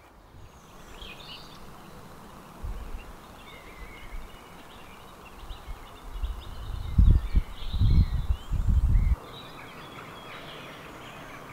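Birds chirping over a steady outdoor hiss. Low, gusty rumbling of wind buffeting the microphone grows past the middle, is the loudest sound, and cuts off suddenly.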